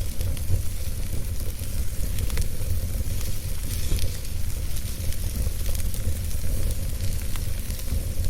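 Fire burning in a fireplace: a steady low rumble of flames under a hiss, with scattered small crackles and pops.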